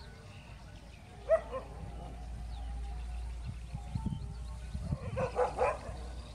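Street dogs in an aggressive standoff: one sharp bark about a second in, a weaker one just after, then a quick burst of about four barks near the end.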